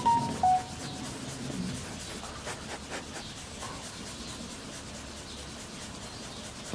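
A hand rubbing toothpaste back and forth over a car's painted body panel to polish out fine scratches, a soft, repeated scuffing rub. A few short whistle-like tones sound within the first half second.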